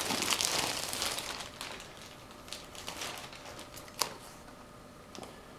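Plastic wrapping crinkling as a wrapped laptop is handled, loud at first and dying down after about two seconds to faint rustles, with a single sharp tap about four seconds in.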